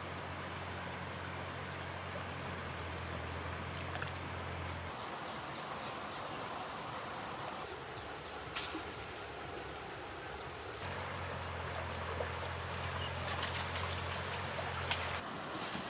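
Steady rush of flowing water, with a low steady hum during the first few seconds and again later, and a few sharp clicks.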